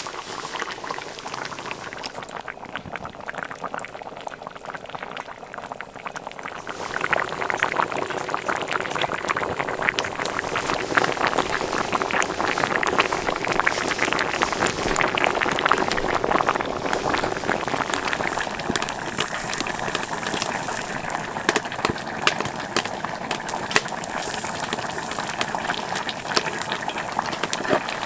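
Pot of dakbokkeumtang (spicy braised chicken stew) bubbling as it simmers, a dense, fast popping and gurgling that grows louder about seven seconds in.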